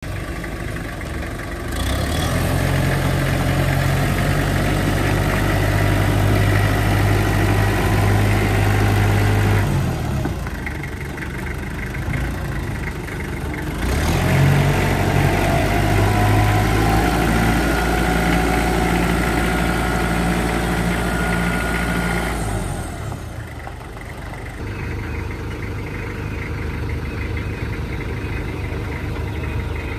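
Kubota M8200 tractor's diesel engine running steadily. It is louder from about 2 s to 10 s and again from about 14 s to 22 s, with sudden drops in level between these stretches and after them.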